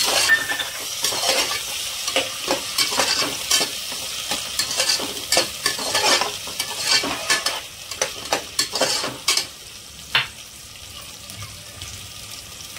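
Green peas being stirred into hot oil and fried onion masala in a pressure cooker: a steady frying sizzle with many quick scrapes and clinks of the spoon against the pot. The stirring stops about ten seconds in, leaving a quieter sizzle.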